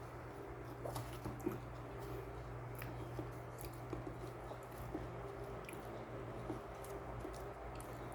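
A person chewing flatbread and chicken, with small irregular wet mouth clicks over a steady low hum.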